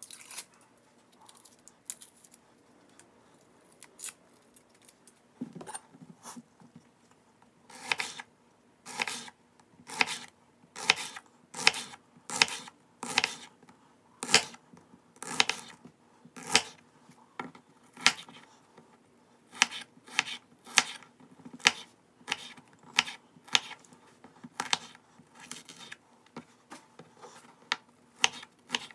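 Kitchen knife slicing shallots directly on a stone countertop: a sharp knock each time the blade goes through and hits the counter, about one or two a second from about eight seconds in, quicker near the end. Before that, a few faint scattered clicks and rustles as a shallot is peeled by hand.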